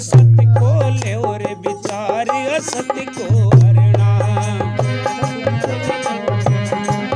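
Hindi devotional bhajan music with tabla: a deep drum stroke booms near the start and again about halfway through, under a wavering melody and held notes.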